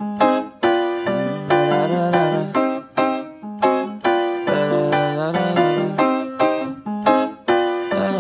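Instrumental background music led by a keyboard, with chords struck about twice a second.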